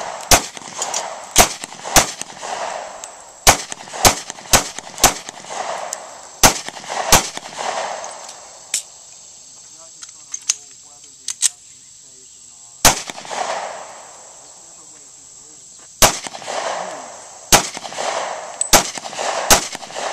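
Semi-automatic pistol fired in a string of single shots, each followed by a short echo. Some shots come in quick pairs and others a second or more apart, with pauses of a few seconds near the middle.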